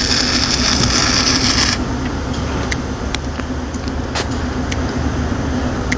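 Steady industrial machinery drone with a loud hiss that cuts off abruptly about two seconds in, followed by a few faint clicks over the remaining drone.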